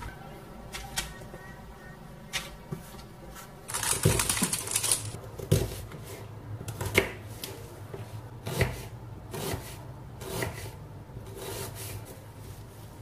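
A knife cutting a red onion on a wooden cutting board: a short rasp of slicing about four seconds in, then a run of separate knocks as the blade strikes the board, roughly one a second.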